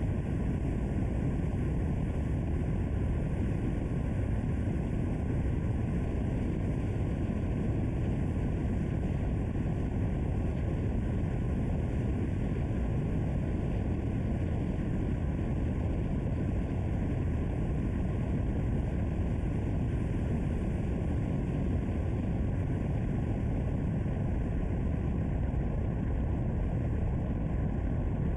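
Steady low rumble of a car on the move: road, wind and engine noise that holds an even level throughout.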